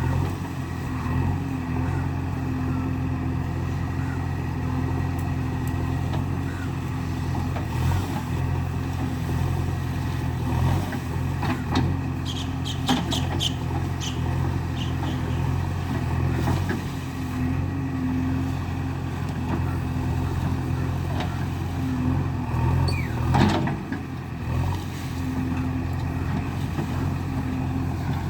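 JCB 3DX backhoe loader's diesel engine running steadily while the machine works, with a cluster of short sharp metallic ticks about halfway through and a brief falling squeal near the end.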